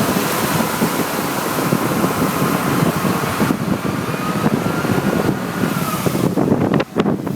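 Wind buffeting the microphone over the rumble of a moving motor vehicle. The sound changes abruptly about three and a half seconds in and turns choppy near the end.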